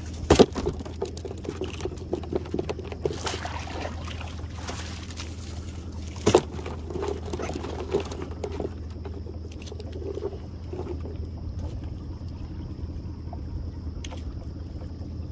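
Water splashing and trickling off a baited crab trotline as it is pulled along the side of a small boat, with two sharp knocks, one about half a second in and one about six seconds in, over a steady low hum.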